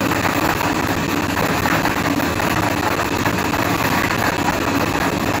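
Lottery ball draw machine running: a steady mechanical whir with dense clattering of plastic balls tumbling inside the clear acrylic drum.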